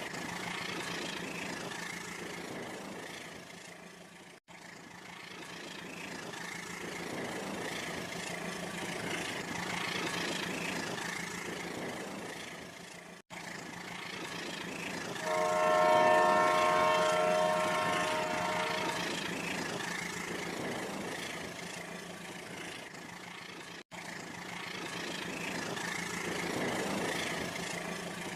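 A train running past, with its horn blowing one steady chord for about four seconds around the middle. The sound cuts out for an instant three times.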